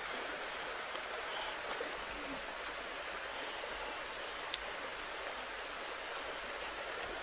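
Scaly skin of a salak (snake fruit) being cracked and peeled off by hand: a few faint crisp clicks and one sharper snap about four and a half seconds in, over a steady outdoor hiss.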